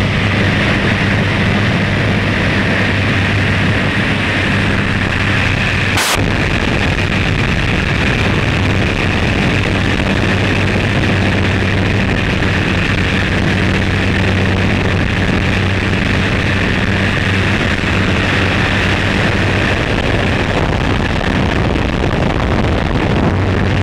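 Light aircraft's piston engine and propeller heard from inside the cabin in flight: a loud, steady drone with rushing air noise. There is a brief click about six seconds in.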